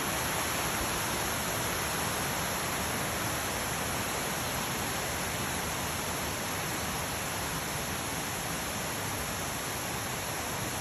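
Waterfall, water crashing down in a steady, unbroken rush.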